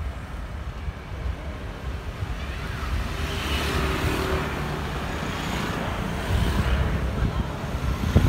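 Wind rumbling on the microphone of a moving bicycle, with motor scooters passing on the road. The traffic noise swells about three seconds in and eases again near the end.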